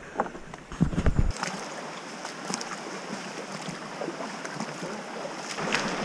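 Wind buffeting the action camera's microphone with a few loud knocks in the first second or so, then the steady hiss of running creek water with scattered small clicks.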